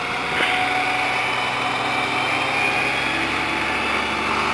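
Dump truck's diesel engine running steadily, its hum firming up in the second half, with one short click about half a second in.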